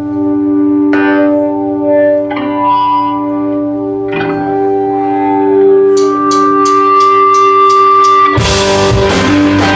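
Live rock band: an electric guitar through effects plays held, ringing notes, joined about six seconds in by steady taps from the drum kit, about four a second, before the full band crashes in loudly near the end.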